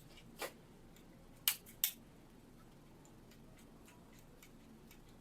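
A power switch flicked off and on in quick succession: a few sharp clicks in the first two seconds, then fainter rapid ticks. This is the off-on cycling used to reset a smart ceiling lamp for pairing.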